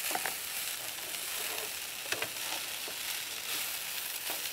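Cooked rice being stir-fried with chopped vegetables in a wok: steady sizzling, with the spatula clicking and scraping against the pan a few times.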